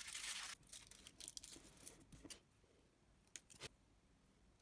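Aluminum foil rustling and tearing, faint, over the first two seconds or so, then near silence broken by two faint clicks.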